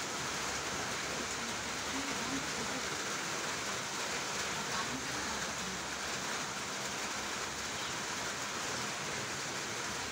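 Steady, even hiss of background noise. The bench vise's screw being cranked open makes no distinct sound.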